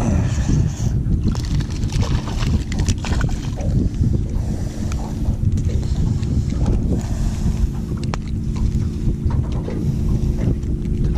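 Wind buffeting the microphone on an open boat, a steady low rumble under a constant low hum, with scattered light clicks.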